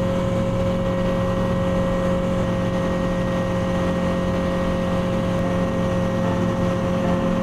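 Light sport aircraft's piston engine and propeller droning steadily in cruise, heard from inside the cockpit.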